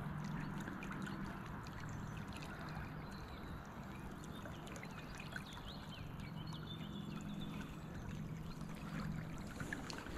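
River water running over and around rocks in a shallow riffle, a steady gentle rush.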